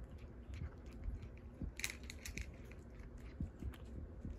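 Cat crunching dry kibble: irregular crunches, with a loud cluster of them about two seconds in.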